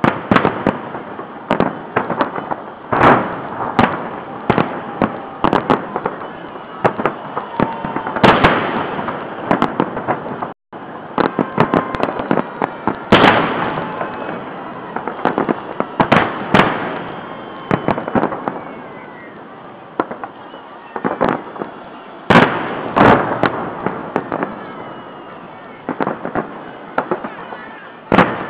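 Fireworks salute: an irregular run of sharp bangs and crackling bursts, with heavier booms every few seconds and faint whistles between them.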